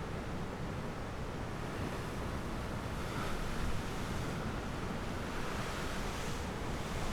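Ocean surf washing steadily, with a rumble of wind on the microphone. The hiss of the waves swells about three seconds in and again near the end.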